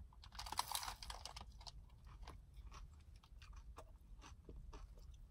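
A person biting into a McDonald's hash brown and chewing it: a denser bite sound about half a second in, then a long run of small, scattered mouth clicks as the hot hash brown is chewed.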